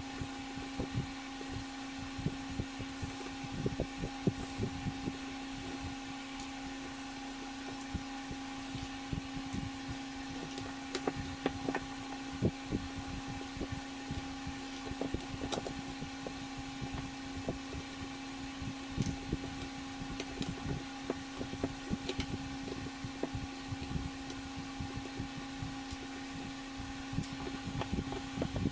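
Screwdriver and hands working on a plastic pressure washer trigger gun: many small, irregular clicks and taps of plastic and metal as the housing screws are turned. A steady low hum runs underneath.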